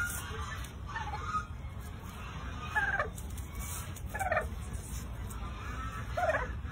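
Domestic poultry calling: four short calls about one and a half seconds apart, over a steady low rumble.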